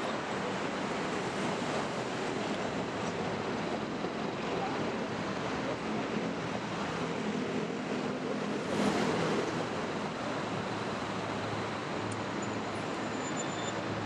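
Steady city street traffic noise at a busy road junction: a continuous wash of engines and tyres, with one vehicle passing louder about nine seconds in.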